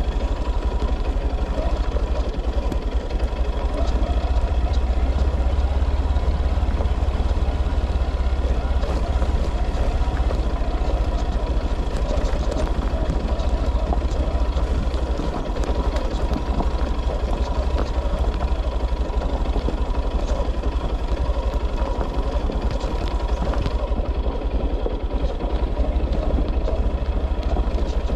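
A motor vehicle's engine running steadily, with a strong low rumble and a constant whine over it.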